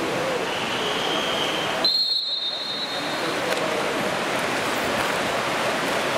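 Referee's whistle: one long steady blast about two seconds in, preceded by a fainter, lower whistle tone. Under it runs a steady wash of noise from splashing water.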